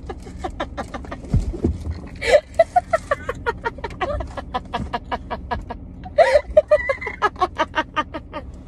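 Two women laughing hysterically: fast, breathy pulses of laughter with high squeals breaking through, and a low thump about one and a half seconds in.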